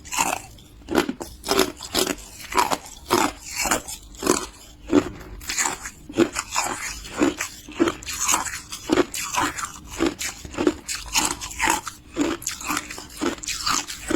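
Hard clear ice being bitten and chewed close to the microphone: a steady run of sharp crunches, about two a second.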